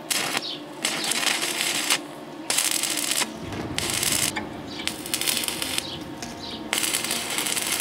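Stick arc welding: the electrode's arc crackles and hisses in repeated bursts of about a second each, with short breaks between, as a small steel plate is welded to a steel tube.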